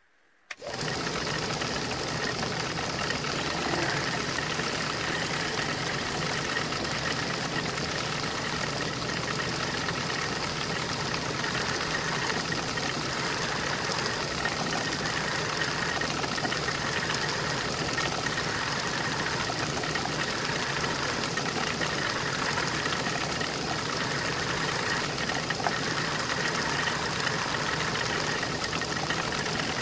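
Small milling machine running steadily, its spindle turning a small cutter that is machining the clamped metal workpiece, with a constant motor hum and whine. It starts abruptly about half a second in.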